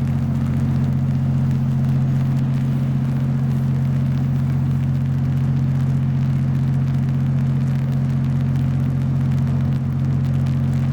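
A steady, low engine drone that holds one pitch without any change.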